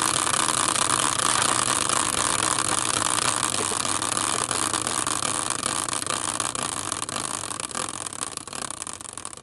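Prize wheel spinning: a fast, dense rattle of clicks that slows and thins out near the end as the wheel comes to rest.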